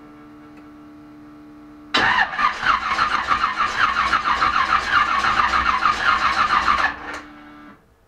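Chevelle's starter cranking the engine for about five seconds in an even rhythm, cutting off without the engine firing: a crank-but-no-start. A steady low hum comes before the cranking and again briefly after it.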